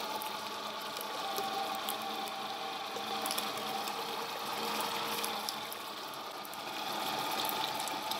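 Electric motor of a Grifo paste machine running steadily as its screw strains red capia peppers into paste: a continuous machine hum with faint scattered ticks.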